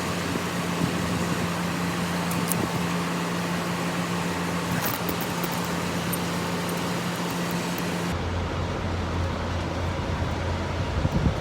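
Steady low drone of an idling engine over a continuous hiss, with a few faint clicks. About eight seconds in, the sound changes abruptly to a deeper hum with the hiss gone.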